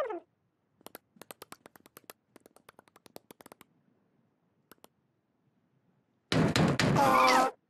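Light, quick tapping footsteps of a small cartoon character pattering across a floor for about three seconds, then a single tap. Near the end comes a louder, noisy sound effect with a wavering, falling tone.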